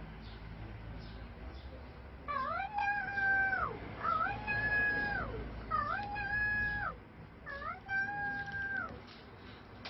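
A cat meowing four times in drawn-out calls, each about a second long, rising, holding a steady pitch, then dropping.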